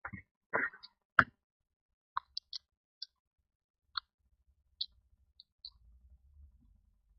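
Small-parts handling: short rustles of Scotch tape, a sharp tap about a second in, then a scatter of faint small clicks as the tape is pressed down over a replacement button in the open remote control.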